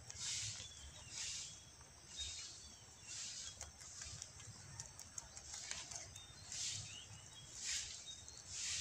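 Quiet outdoor ambience: soft hissing swishes that swell and fade roughly once a second, with a few faint bird chirps.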